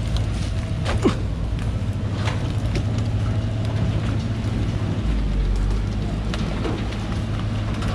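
Loaded log truck's engine running steadily, its low note growing heavier about five seconds in, with a few sharp knocks, the loudest about a second in.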